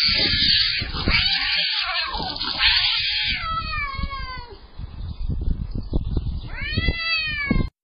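Two domestic cats fighting: harsh screeching for the first three seconds or so, then long wavering yowls as they face off, with two rising-then-falling yowls near the end. Low thuds and rumble run underneath.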